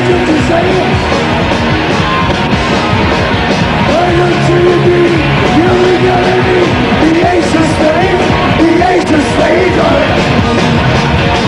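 Loud live hard-rock band performance: distorted bass and guitar with drums, and a male lead vocal singing over it.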